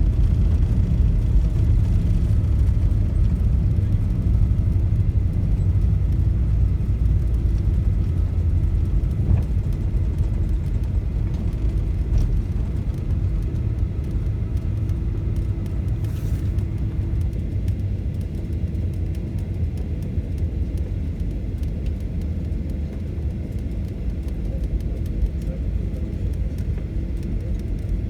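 Boeing 737 heard from inside the cabin: a steady low rumble of engines and airflow that slowly eases off.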